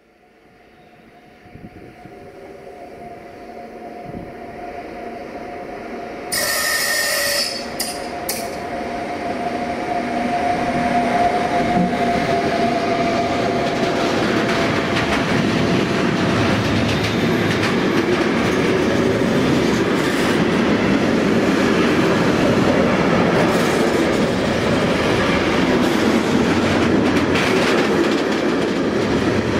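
Freight train approaching and passing, its wheels rattling over the rails with a drawn-out squeal. It grows steadily louder from near silence, and a sudden loud shrill burst about six seconds in lasts around a second, followed by two short ones.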